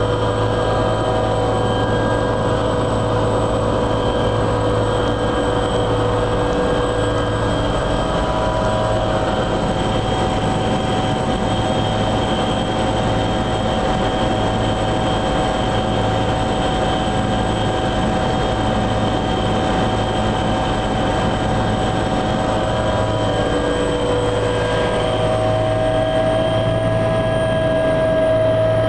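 Helicopter turbine engines and rotor running steadily, heard from inside the cabin while still on the ground, a mix of steady whines over a low hum. Near the end a high whine rises slightly in pitch and a mid whine grows louder.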